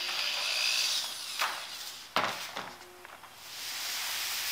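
Hand-held electric drill with a 1/4 inch bit running with a steady whine as it opens up pilot holes through a cheek rest into a rifle stock, stopping about a second in. Then a few knocks and one sharp clack as the stock is handled in its jig, and a rustling noise near the end.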